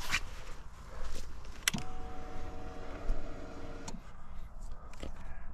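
Ignition switched on on a 2015 Aprilia RS4 motorcycle: a click, then the electric fuel pump priming with a steady whine for about two seconds, stopping abruptly. Light handling clicks and rustles around it.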